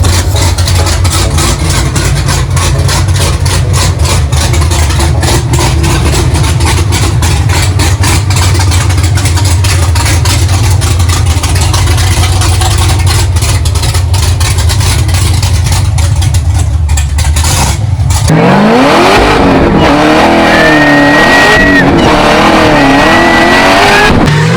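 A big-cam, supercharged 427 cubic-inch LS V8 in a Camaro idling with a loud, choppy lope. About eighteen seconds in it revs up and then rises and falls in pitch, with a high whine over the exhaust.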